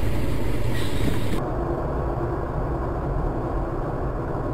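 Steady vehicle noise recorded from inside a car by a dashcam: engine and road rumble. About a second and a half in it changes abruptly, becoming quieter and duller.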